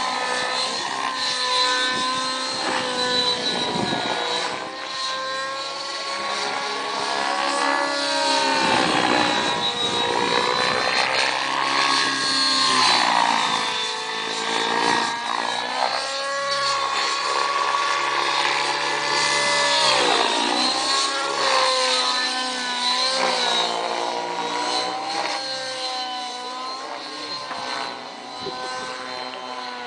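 Curtis Youngblood Rave 90 nitro RC helicopter in aerobatic flight: engine and rotor blades running hard, their pitch repeatedly dipping and rising again through the manoeuvres.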